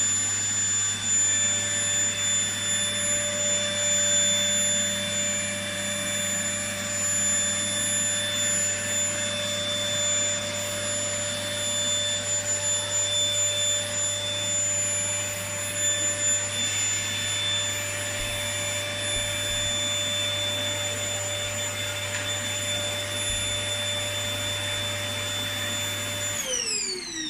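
Vacuum cleaner running steadily with a high whine, then switched off near the end, its pitch falling as the motor spins down.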